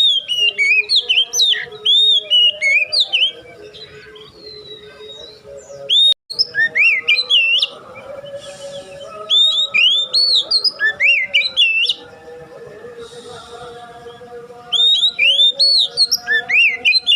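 Oriental magpie-robin singing: four bursts of rapid, varied whistled phrases with sweeping notes, each lasting two to three seconds, separated by short pauses. Beneath the song there is a steady background of low held tones.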